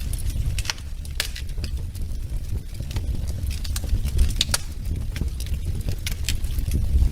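Wood fire burning in a fireplace, with irregular sharp crackles and pops over a low steady rumble.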